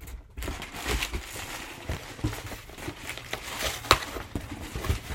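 Shipping packaging being handled and pulled open: irregular rustling and crinkling with scattered clicks and one sharp click about four seconds in.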